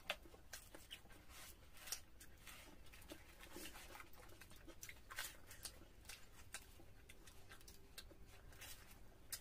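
Faint, irregular eating sounds: luchi (puffed fried bread) torn by hand, fingers working chicken curry on the plates, and chewing, heard as scattered soft clicks and smacks.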